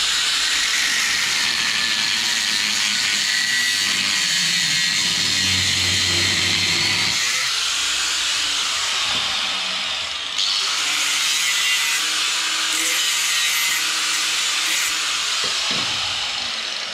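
Angle grinder cutting through a steel suspension control arm, running with a steady high-pitched grinding noise. It eases off briefly about ten seconds in, cuts again, then winds down near the end.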